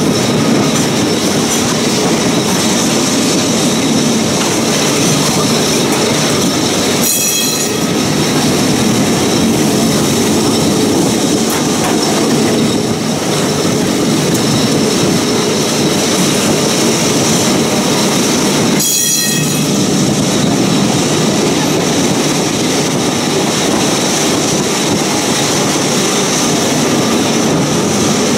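Classic two-axle electric tram running on its rails: a steady rumble of wheels and running gear with a continuous high wheel squeal.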